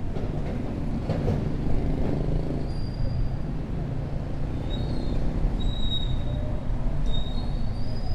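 City street traffic beside a square: a steady low rumble of passing vehicles, with a bus engine among them. A few short, high chirps come in the second half.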